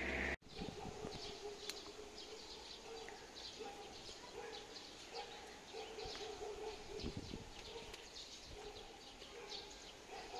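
Small birds chirping repeatedly in short high notes, with lower intermittent cooing-like calls underneath.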